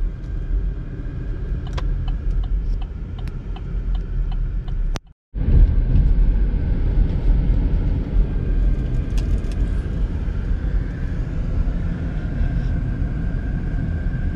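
Road noise inside a moving car's cabin: a steady low rumble of engine and tyres. About two seconds in there is a quick run of light ticks, and about five seconds in the sound cuts out for a moment.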